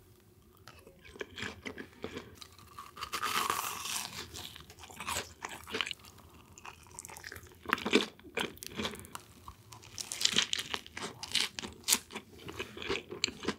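Close-up eating sounds: bites and chewing of crisp fried food, a run of crackly crunches that comes in clusters, strongest about eight seconds in and again between about ten and twelve seconds.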